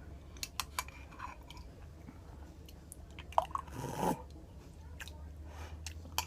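A person chewing food with their mouth close to the microphone: scattered wet clicks and smacks, and a half-second noisy rush about four seconds in.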